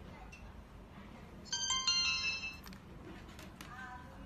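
A short electronic start-up jingle, a quick run of stepped beeping tones, from a Wi-Fi security camera's small speaker as the camera powers on. It comes about a second and a half in and lasts about a second.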